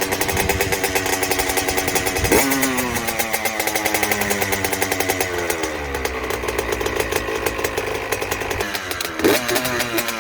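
Honda CR85R's 85cc two-stroke single-cylinder engine running on its freshly rebuilt top end, warming up. It is blipped sharply twice, about two seconds in and near the end, the pitch jumping up and falling back each time.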